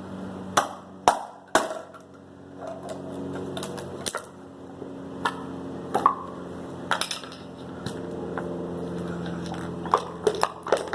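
Irregular sharp metallic clicks and knocks from handling an emptied, scissor-punctured aerosol spray paint can and scissors, over a steady low hum.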